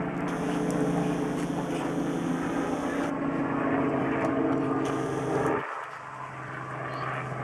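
Small light helicopter flying past overhead, its engine and rotor making a steady drone that drops sharply in level about five and a half seconds in, leaving a faint low hum.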